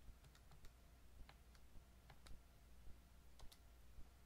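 Faint clicks of TI-84 Plus C Silver Edition graphing calculator keys pressed one at a time, about ten presses at an uneven pace as a number is typed in and entered.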